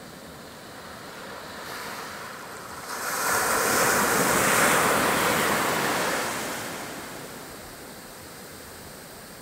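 Surf on a sandy beach: a wave breaks and washes up the sand, its rush swelling about three seconds in and dying away a few seconds later, over a steady hiss of surf.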